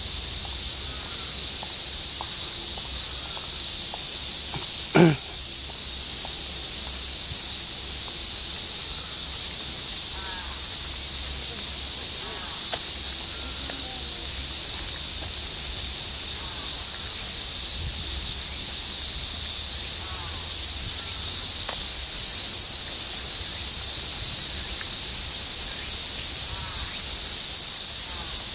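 Steady, loud, sizzling chorus of cicadas in the trees. About five seconds in there is one brief sharp sound that drops quickly in pitch, and faint short chirps come and go underneath.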